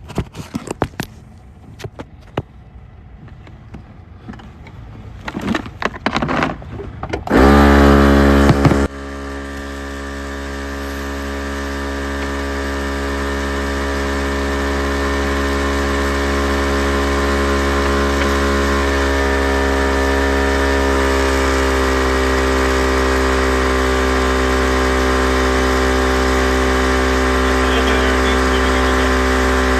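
A few clicks and handling sounds, then about seven seconds in a portable air compressor starts with a brief loud burst and runs steadily, inflating a tire. Its hum grows slowly louder as it runs.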